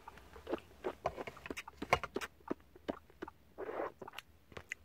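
Irregular small clicks and taps close to the microphone, with a short rustle about a second before the end.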